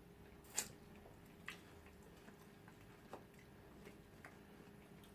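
Quiet eating sounds: a few short, sharp mouth clicks while chewing soft food, the loudest about half a second in and two fainter ones at about one and a half and three seconds.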